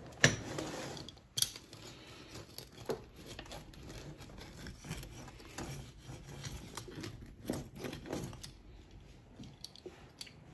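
A pizza cutter wheel rolling through a baked focaccia's crust in its metal baking tray: repeated irregular crunchy scraping strokes. A sharp knock sounds just after the start.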